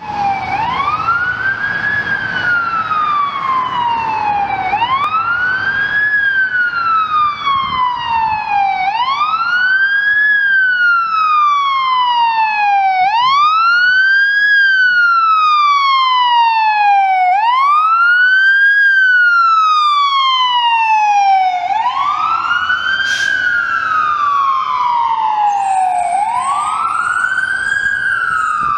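Fire rescue truck's electronic siren in wail mode: a tone that sweeps up quickly and slides down slowly, repeating about every four seconds. Engine rumble from the truck grows underneath in the last several seconds as it passes.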